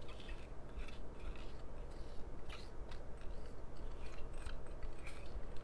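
Silicone spatula scraping fragrance-oiled dendritic salt out of a small glass bowl: a run of short scrapes, about two a second.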